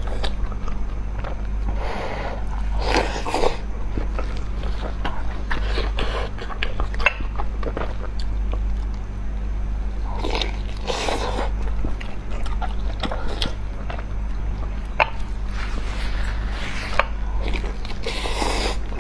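Close-miked wet eating sounds: a soft vegetable roll dipped in spicy chili sauce being bitten, chewed and slurped, with lip smacks and small clicks and a few louder slurps. A steady low electrical hum runs underneath.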